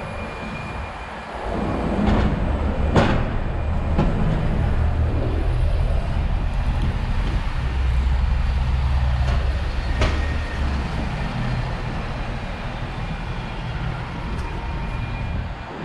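Street traffic: a passing vehicle's engine rumbles steadily from about a second and a half in, with two sharp clicks about three and ten seconds in.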